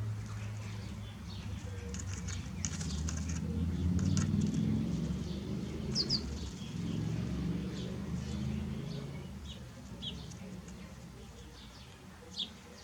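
Birds calling: short, high chirps now and then over a low steady hum that fades out about two-thirds of the way through.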